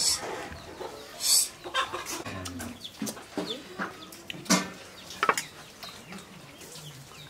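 Chickens clucking in short calls, with a few sharp clinks among them.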